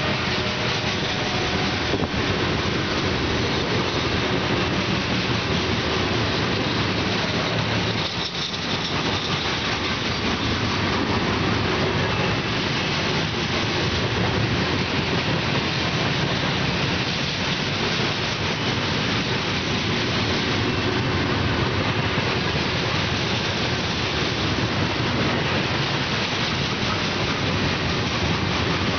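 Union Pacific coal train's open-top coal cars rolling past close by, a steady loud noise of steel wheels on rail, dipping briefly about eight seconds in.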